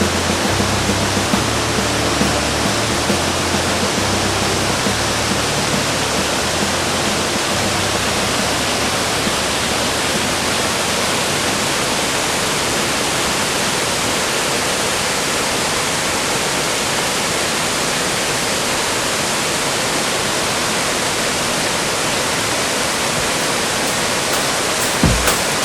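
Steady, loud rushing of a waterfall. Low music notes sound under it for the first several seconds and fade out, and a few sharp clicks come in near the end.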